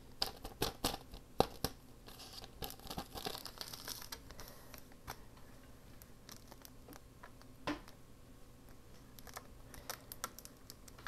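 Paper rustling and crinkling, with scattered light clicks and taps, busiest in the first few seconds and sparser after.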